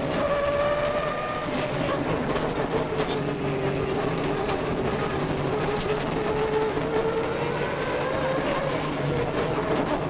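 Subaru Impreza 555 Group A rally car's turbocharged flat-four engine heard from inside the cabin, running hard under load on a stage. Its pitch sinks gradually over the first few seconds, then climbs a little and eases off again near the end.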